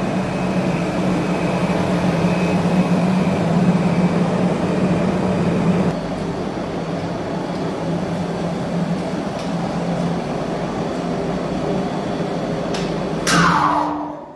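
Geared hoist machine of a 1989 VAM freight elevator with a Montan gearbox, running with a steady hum while the car travels. Near the end it winds down with a falling whine and stops.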